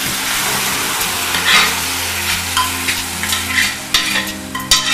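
Cooked toor dal poured from a pressure cooker into a kadai of onions and tomatoes frying in hot oil, sizzling steadily as it hits the pan. A few sharp metal clinks sound near the end.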